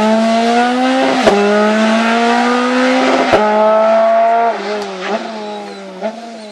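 Rally car's engine accelerating hard away up the road. Its pitch climbs and breaks for an upshift about a second in and again about two seconds later. Near the end the engine eases off and fades into the distance, with a couple of sharp cracks.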